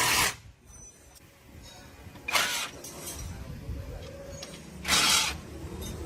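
Three short, loud hissing blasts, each about half a second long and about two and a half seconds apart, over a low rumble.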